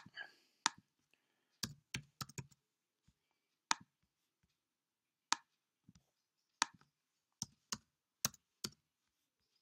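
Computer keyboard keystrokes as text is typed into a form: scattered single taps and short runs of clicks, with dead silence between.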